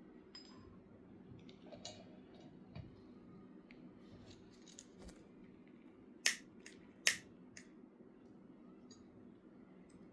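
Light metallic clicks and handling noises from the lamp's parts being worked, with two sharp clicks about six and seven seconds in, over a steady low rush.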